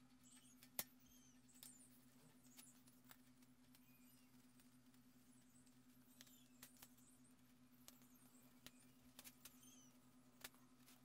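Near silence: a faint steady low hum with scattered small clicks, the sharpest about a second in.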